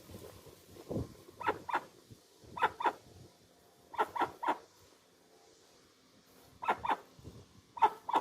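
Dusky-legged guan (jacuguaçu) calling: short, loud notes given in quick pairs and threes, each group a second or more apart, with a couple of lower single notes in between.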